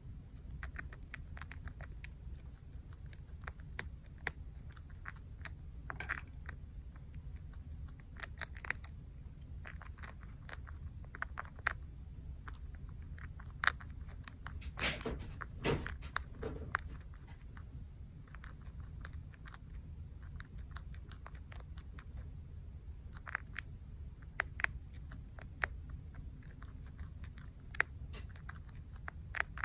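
Chinchilla chewing carrot leaves: quick, irregular small crunches and clicks, with a denser run of crunching around the middle, over a low steady hum.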